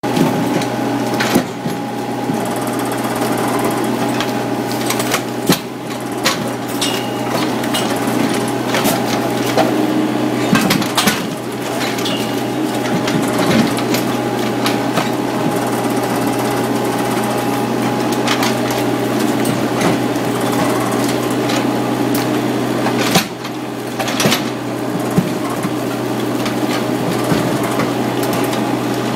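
Kobelco SK30SR mini excavator's diesel engine running steadily while its hydraulic mini crusher bites into a concrete wall. Scattered cracks and knocks of breaking concrete come through, the sharpest about 23 seconds in.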